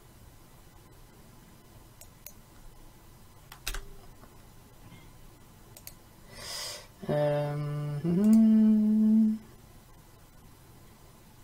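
A man breathes out, then hums a closed-mouth two-note 'hmm-hmm', the second note higher and held about a second: a puzzled hum while working out a problem. A few faint mouse clicks come before it.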